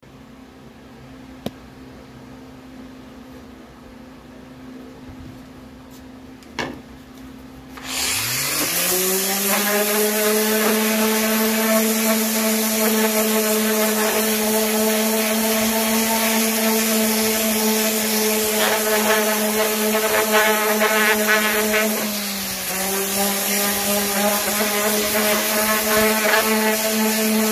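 Random orbital sander starting up about eight seconds in, its pitch rising as it spins up, then running steadily as it sands the paint off a laser-engraved wooden panel. The pitch dips and settles a little lower near the end. Before it starts there is only a faint steady hum and two light knocks.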